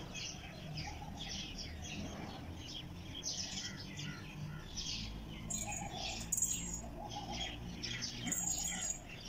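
A busy chorus of small birds chirping continuously, many short overlapping chirps.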